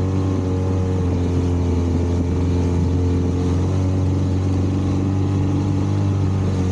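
Outboard motor of a small open boat running steadily at speed, a constant low drone, over a continuous rush of water and wind.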